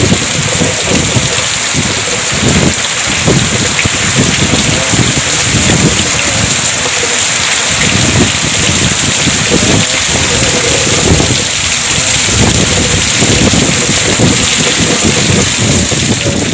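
Heavy rain pouring down in a storm with strong wind, a loud steady hiss with irregular gusts rumbling on the microphone.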